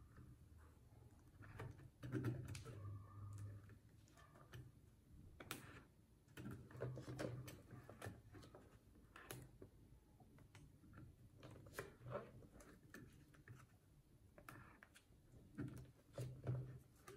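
Clear plastic binder sleeves rustling and clicking softly as the pages of a ring binder are handled and turned, in a string of small irregular ticks and crinkles.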